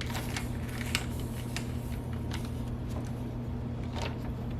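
FoodSaver vacuum sealer's pump running with a steady low hum, while the plastic bag crackles lightly as it is drawn tight around the damp leather and the mold.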